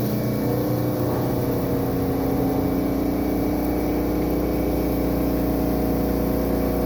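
4-axis CNC milling machine running while machining a hex: a steady hum with several held tones.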